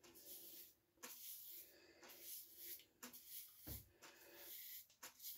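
Double-edge safety razor with an Astra blade scraping through lathered stubble on a shaved head in short, faint strokes, about two a second.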